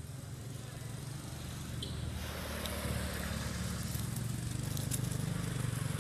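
A motor engine running with a steady low hum that grows gradually louder, joined about two seconds in by a rushing hiss.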